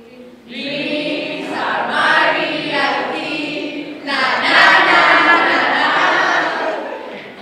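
A group of teenage girls cheering and shrieking together with laughter, in two loud swells, the second one louder.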